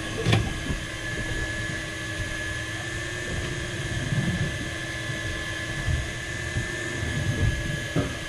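A steady motor whine runs on under wind buffeting the microphone, with a short knock just after the start and another near the end.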